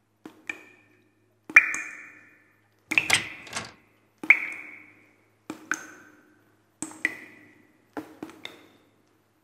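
Sparse sharp taps, each ringing briefly with a high tone, about one every second and a half, some coming in quick pairs.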